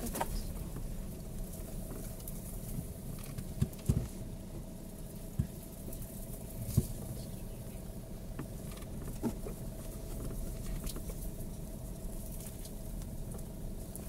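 A car driving slowly over a rough dirt track, heard from inside the cabin: a steady rumble of engine and tyres with a faint hum, and a few sharp knocks and rattles as the car jolts over the ruts, the loudest around four seconds and about seven seconds in.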